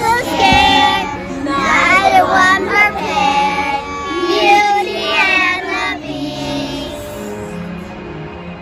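A group of young children singing together over an instrumental accompaniment. The singing thins out about six seconds in, leaving softer held notes of the accompaniment.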